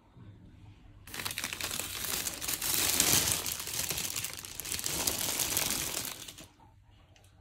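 A dense crinkling, rustling noise that starts about a second in, runs for about five seconds and stops near the end.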